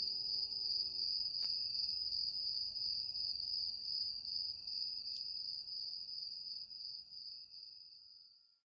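Background soundtrack: a steady high-pitched insect-like trill, with a few low sustained music notes that stop about a second in. The trill fades out to silence near the end.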